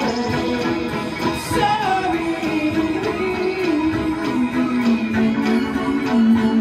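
A pop-punk band playing live: a held, slowly wandering melody line over a steady beat.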